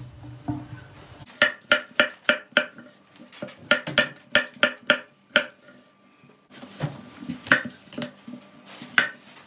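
Chef's knife chopping carrots on an end-grain wooden cutting board: a quick run of sharp knocks of the blade striking the wood, about three a second. After a short pause, a few more knocks near the end as a peeled potato is cut into wedges.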